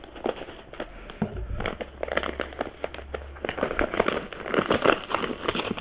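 A yellow padded mailer being slit open with a knife and pulled apart by hand, its paper and plastic crinkling in a dense run of crackles.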